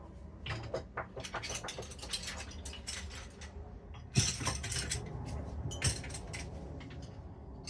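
Old metal hand tools, screwdrivers among them, clinking and rattling against each other as they are picked through by hand. There are many small clicks throughout and a louder clatter about four seconds in.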